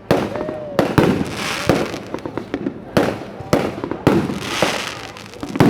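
Aerial fireworks exploding in quick succession: sharp booming bursts about every half second to a second, each followed by crackling and hiss as the shells break. A brief rising whistle, likely a shell going up, sounds just after the start.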